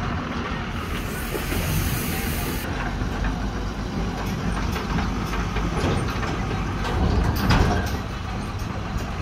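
Diesel engines of a JCB 3DX backhoe loader and a tipper truck running, a steady low rumble with scattered knocks. About a second in there is a hiss lasting about two seconds.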